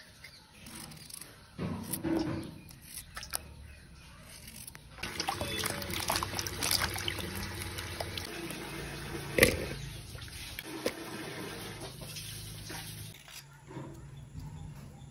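Water sloshing and splashing in a metal bowl as cut pumpkin pieces are dropped in and rinsed by hand, with a few light knife clicks. The splashing is busiest in the middle, with one sharp splash about nine seconds in.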